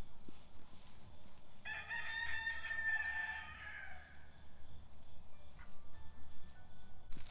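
A rooster crows once, one drawn-out call of about two seconds starting a little under two seconds in.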